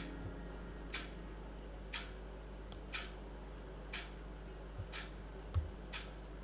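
Wall clock ticking steadily, one tick a second, over a faint low room hum, with a soft low thump about five and a half seconds in.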